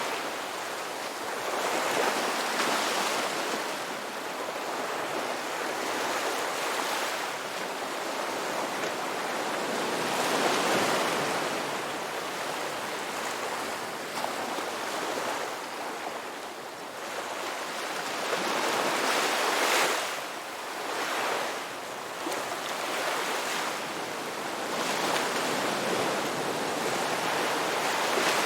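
Ocean waves breaking and washing onto a shore, a steady rushing surf that swells and eases every few seconds.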